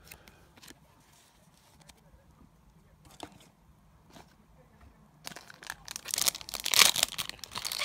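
A few faint clicks of trading cards being handled, then from about five seconds in a loud, busy crinkling and tearing of a crinkly card-pack wrapper being opened.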